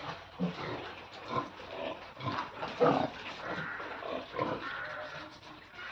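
Pigs grunting on and off, short separate grunts spread through a few seconds.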